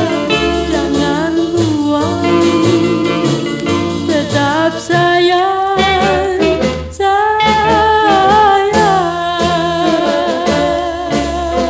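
Retro Malay pop song with a woman singing over a swing-style band, the melody held in long notes with vibrato.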